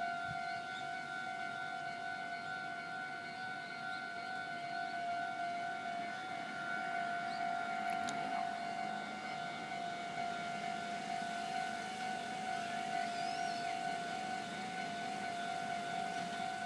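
Japanese railway level-crossing warning bell ringing: a steady electronic tone, repeating fast without a break.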